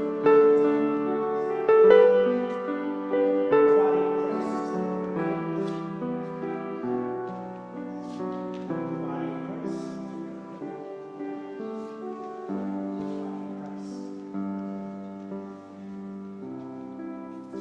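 Soft instrumental keyboard music of slow, sustained chords, growing gradually quieter.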